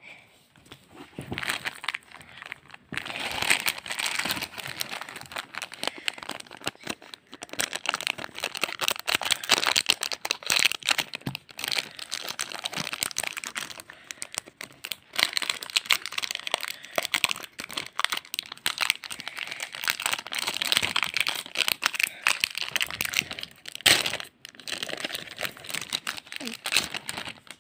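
Foil Pokémon card booster-pack wrappers crinkling as they are handled and torn open, alongside cards being handled. The crinkling is near-continuous with many small crackles and a few brief pauses.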